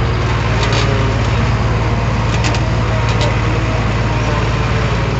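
Heavy diesel engine of earthmoving machinery running steadily, with a deep, even drone and a few short clicks over it.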